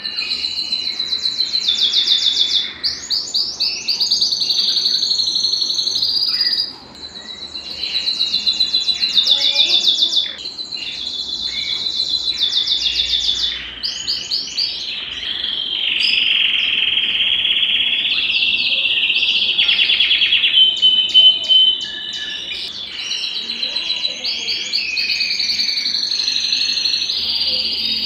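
Domestic canary singing a long, nearly continuous song of fast trills and rolls, broken by a few short pauses.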